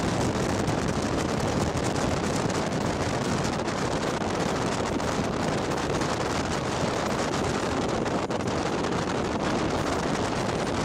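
Steady rushing of wind and tyre noise inside a moving car, heard through a lowered side window.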